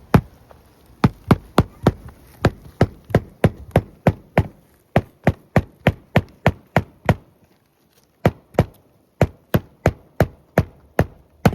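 Hammer driving a roofing nail through a replacement asphalt shingle, working up under the overlapping shingle above, with short, rapid blows at about three a second. There is a brief pause about two-thirds through before the strikes resume.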